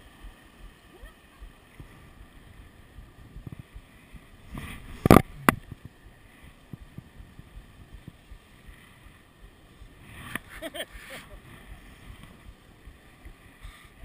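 Wind and water noise aboard a sailboat under way in a strong breeze, a low uneven rumble on the camera microphone. Sharp knocks about five seconds in, the loudest sounds, and smaller ones near ten seconds, as lines and gloved hands brush against the camera.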